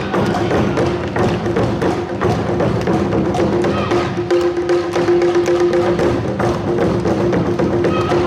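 Awa-odori festival music played live: percussion beats and clacks keeping a steady rhythm under a sustained melody line.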